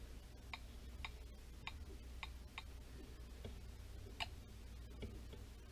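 Faint, short clicks at an irregular pace as keys are pressed on a touchscreen tablet's on-screen keyboard while a name is typed in, over a low steady hum.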